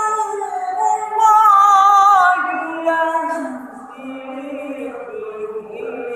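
A male reciter chanting the Quran in tilawah style, a melismatic line in maqam Rast at the high 'jawab' pitch. He holds and ornaments a high phrase, then a little over two seconds in glides down to a lower, quieter phrase.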